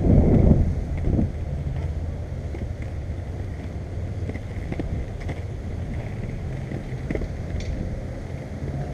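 Skateboard wheels rolling on a concrete sidewalk: a steady low rumble, with a light click now and then as the wheels cross the joints between slabs. Wind buffets the microphone, loudest in the first half second.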